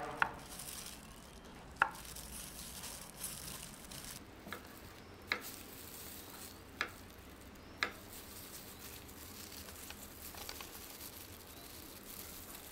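A kitchen knife cutting red dragon fruit and knocking on a wooden cutting board: about six or seven sharp, separate taps spread over several seconds, above a faint steady hiss.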